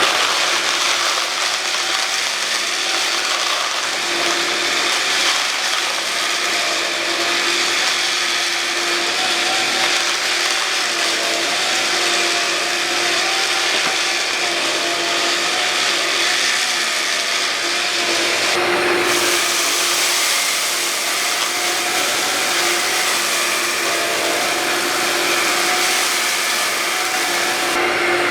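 Hoover Linx cordless stick vacuum running steadily, a loud motor whine over a rushing of air. About nineteen seconds in the sound falters briefly, then comes back with more hiss in the treble.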